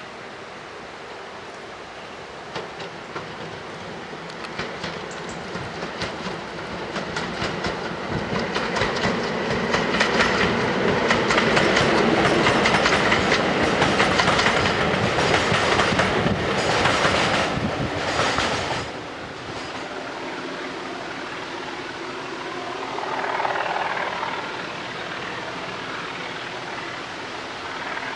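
Diesel-hauled train passing: the locomotive's engine running and the wheels clicking over rail joints, building up and loudest in the middle, then cutting off suddenly about two-thirds of the way through, leaving a quieter steady background.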